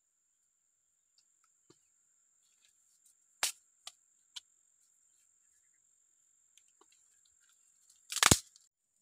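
Dry cane stalks knocking and clattering as they are handled and laid on bare soil: three sharp cracks around the middle, then a louder clatter near the end.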